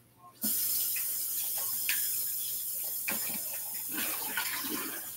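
Kitchen sink faucet turned on about half a second in, water running steadily into the sink, with a few small knocks from hands working under the stream.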